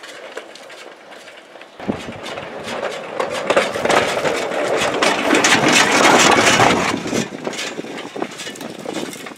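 Metal wheels of a small homemade rail chassis rolling along 15-inch-gauge track, a clattering rumble that starts about two seconds in, is loudest in the middle and dies down toward the end. A few clicks and knocks come before it.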